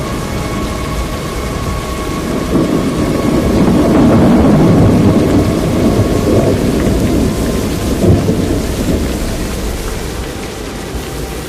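Thunderstorm: steady rain under a long rumble of thunder that swells a few seconds in, gives a sharper clap about two-thirds of the way through, then eases off.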